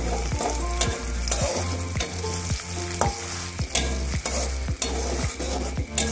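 A metal spatula stirring and scraping egg, shallots and tomato in a metal wok as they fry in sizzling oil, with the spatula striking the pan about twice a second.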